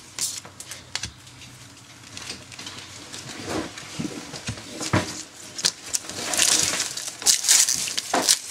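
Cards and a foil Cardfight!! Vanguard booster pack being handled: scattered light taps and clicks, then from about six seconds in the crinkling of the foil wrapper as the pack is opened.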